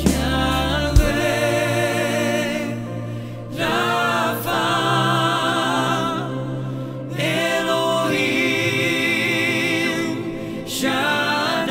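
Male voices singing a Christian worship song in Hungarian in close harmony. The drums and bass drop out about a second in, leaving the voices nearly a cappella, in phrases with brief breaks between them.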